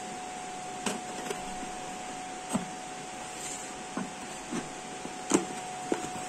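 Scattered knocks and rustles of a cardboard shipping box being handled and opened, about seven short ones, over a steady hum.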